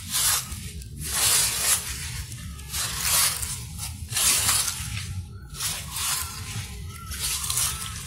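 Footsteps crunching through a thick layer of dry fallen leaves, about one crunch a second, over a steady low rumble.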